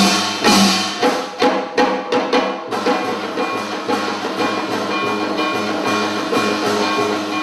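Janggu hourglass drum played hard with sticks, ending in a quick run of strokes about two and a half seconds in. The music then settles into sustained melody with a haegeum fiddle over a lighter, regular drum beat.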